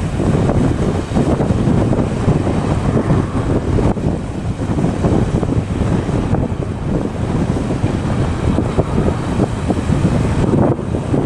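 Strong wind buffeting the microphone: a loud, gusting rumble.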